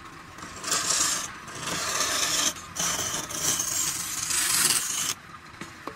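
Flat steel scraper cutting the inside of a wooden bowl spinning on a wood lathe: a loud, steady hissing scrape as shavings come off. It starts just under a second in, breaks off briefly two or three times, and stops about five seconds in.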